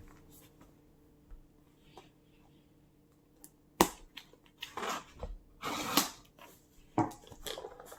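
A sealed cardboard snack box being opened and handled: a few sharp rips and crackling rustles in the second half, after a few quiet seconds.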